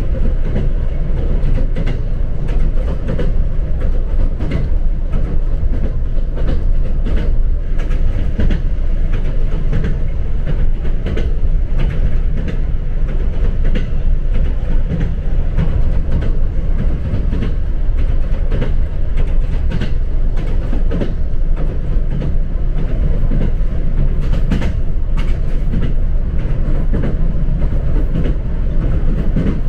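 Electric train heard from inside the carriage while running: a steady low rumble of wheels on rails, with frequent irregular clicks and knocks from the track.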